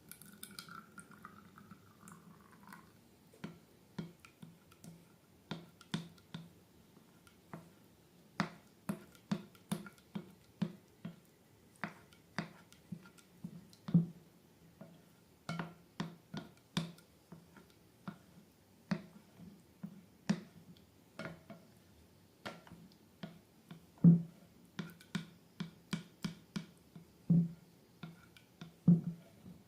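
Wet slime being squished and mixed by hand, making irregular sticky clicks and pops about one or two a second, a few louder ones near the end.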